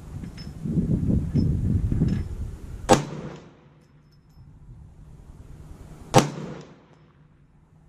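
.450 Bushmaster AR-15 rifle firing two single shots about three seconds apart, each with a short ringing tail under the covered shelter, while it is sighted in. A low rumble of wind on the microphone comes before the first shot.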